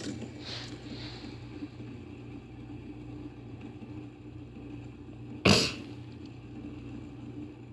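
A steady low hum, with one short, loud knock about five and a half seconds in.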